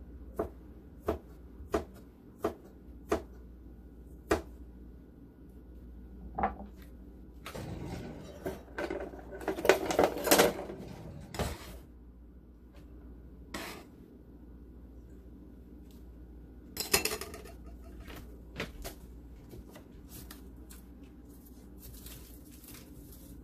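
A knife cutting fresh ginger into slivers on a plastic cutting board: about six sharp, evenly spaced chops in the first few seconds. Then comes a longer, louder stretch of scraping and clatter as the cut ginger is scraped up off the board, with a couple of short knocks and clatters later.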